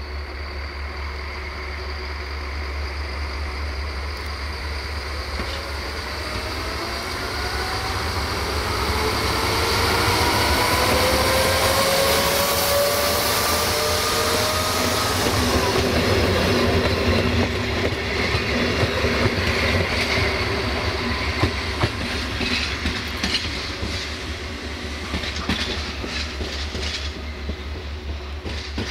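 Caravelle X4500 diesel railcar pulling its trailer past. The engine note climbs in pitch as it approaches and is loudest as it passes close by. Then the wheels click over rail joints as it draws away, over a steady low rumble.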